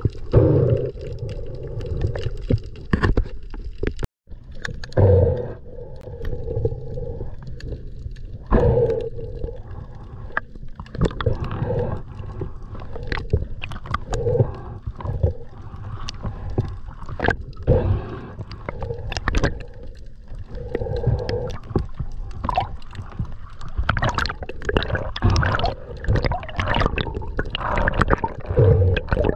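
Underwater noise picked up by a camera in the sea: water gurgling and sloshing against the housing, with many irregular sharp clicks and low muffled thumps. The sound cuts out for a moment about four seconds in.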